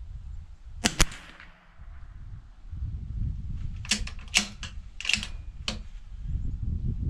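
A Bergara B14R .22 LR bolt-action rifle fires: two sharp cracks close together about a second in. A few seconds later comes a quick run of metallic clicks as the bolt is cycled to eject the case and chamber the next round.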